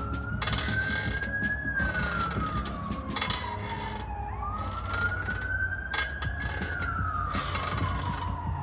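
Emergency-vehicle siren on a slow wail: a single tone that climbs over about a second and a half, then slides down for about three seconds, going round twice. Scattered short rustles and clicks sound along with it.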